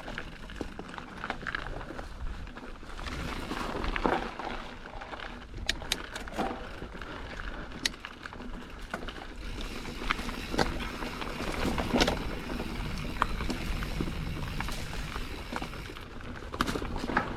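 Mountain bike riding down a dry, dusty dirt trail: tyres rolling over loose dirt with a steady rush, and frequent sharp clicks and knocks as the bike rattles over bumps.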